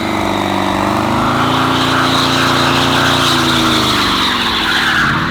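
Car engine revving hard and held at high revs while the tyres spin in a burnout, with a hiss of spinning rubber; the revs ease off about four seconds in.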